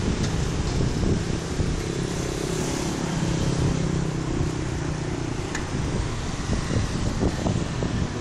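Steady street traffic, with a motor vehicle engine running past during the first few seconds, and wind rumbling on the microphone.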